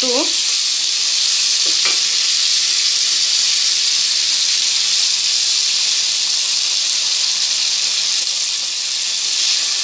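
Marinated chicken pieces frying in hot oil with fried onions: a steady, loud sizzle, while a wooden spatula turns the meat in the pan.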